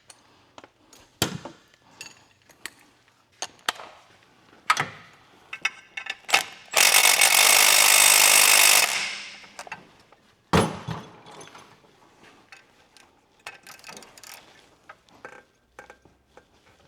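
Hand tools on corroded exhaust-manifold hardware: scattered metal clicks and knocks. About seven seconds in comes a loud, steady rush of noise lasting about two seconds.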